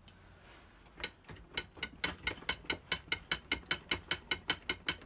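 Ratchet clicking steadily at about five clicks a second, starting about a second in, as a stubborn fastener on an outboard motor is turned out during disassembly.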